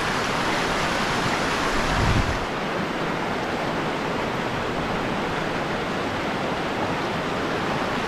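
Small mountain stream rushing over rocks through a riffle: a steady, even rush of water. A short low rumble comes about two seconds in.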